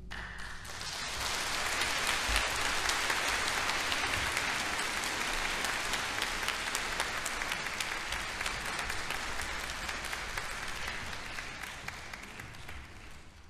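Audience applauding, building up over the first second or so and slowly dying away toward the end.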